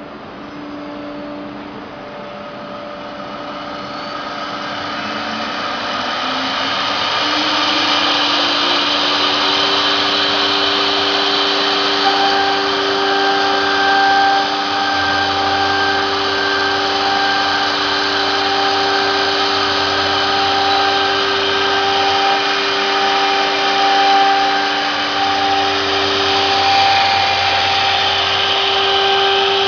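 CNC wood router spindle spinning up as machining begins, its whine rising in pitch and loudness over the first several seconds, then running steadily. The dust collector and water-ring vacuum pump run steadily underneath it.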